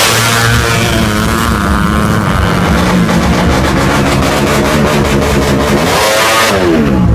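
Tuned 200cc Suzuki Satria FU drag bike engine revving hard, its pitch wavering up and down, then dropping sharply near the end.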